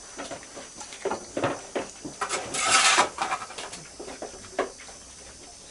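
Pigs grunting in short, irregular bursts, with one louder squeal about two and a half seconds in.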